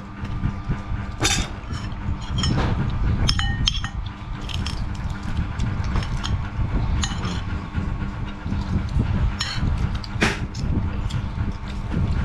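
Metal spoons clinking against ceramic plates and bowls during a meal, several sharp clinks scattered through, the loudest about a second in and about ten seconds in, over a steady low rumble.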